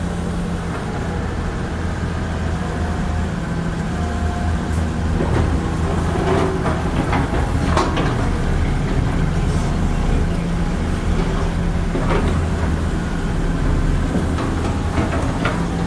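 Excavator's diesel engine running steadily, with scattered clanks and scrapes, mostly in the middle and near the end.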